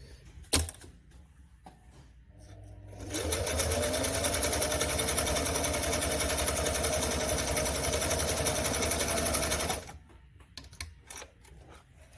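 Singer 348 sewing machine running at speed, stitching through a thick synthetic belt, which it slices through. It spins up with a rising whine about three seconds in, runs steadily, and stops suddenly near the end, with a sharp click before it starts and a few light clicks after it stops.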